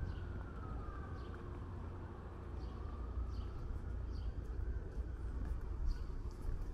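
Emergency-vehicle siren wailing faintly, its pitch sliding slowly down and back up, over a steady low city rumble.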